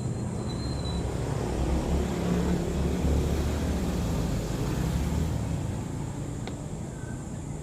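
Low engine rumble that swells over the first five seconds and then fades, with a single click about six and a half seconds in.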